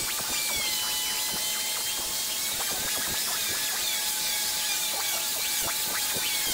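Electric orbital sander running against the flat face of a solid-wood table top, a steady rushing hiss with a high motor whine that wavers up and down in pitch as the sander is swept back and forth.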